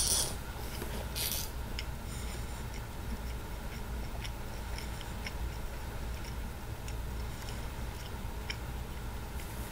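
A person chewing a pizza slider with the mouth closed: irregular soft clicks and smacks over a steady low hum, with a brief rustle of movement at the start and about a second in.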